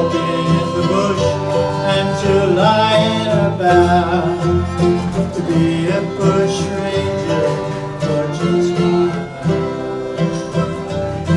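Live acoustic folk band playing an instrumental passage, guitar and banjo strumming under a melody line that glides in pitch.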